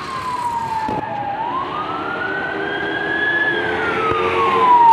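Police van's wail siren sweeping slowly down, up and down again in pitch, growing louder as the van approaches.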